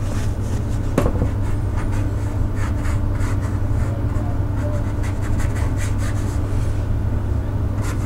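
A flat watercolour brush stroking and scrubbing across damp watercolour paper in a run of short, soft rubbing strokes, with a light tick about a second in. Under it runs a steady low hum.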